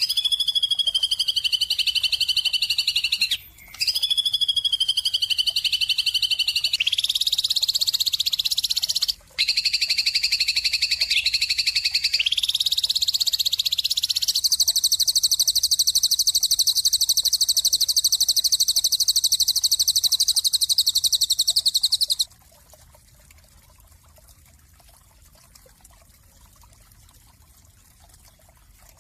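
Bird singing long, rapid, high-pitched trills of several seconds each, with a couple of brief breaks. It stops suddenly about two-thirds of the way through, leaving only faint background noise.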